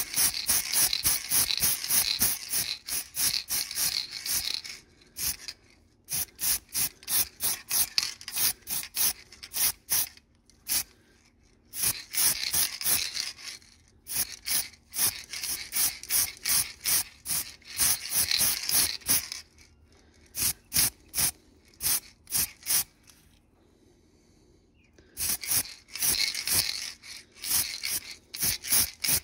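Aerosol spray paint can hissing in runs of quick short bursts, with pauses between runs (the longest about two-thirds of the way through), misting a light coat of paint onto a small model.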